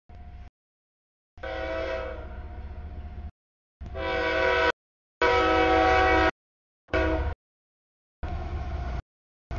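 CSX diesel freight locomotive's air horn sounding a chord for a grade crossing in several blasts that start and stop abruptly, the loudest about five to six seconds in, over the rumble of the train. Near the end the horn has stopped and the rumble of the passing intermodal cars goes on.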